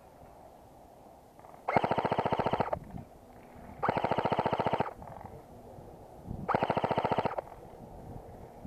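Airsoft electric gun firing three full-auto bursts of about a second each, a rapid, even rattle of shots.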